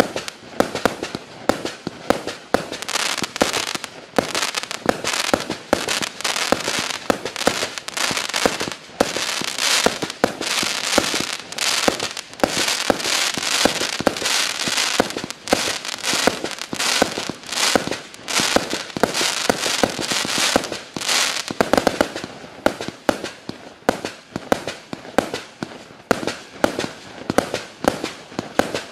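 A Klasek Profi Show 200 firework cake, 200 shots of 20 mm calibre, fires in rapid succession: a quick, unbroken string of shots and bursts, several a second. The shots come thickest through the middle, where they run together.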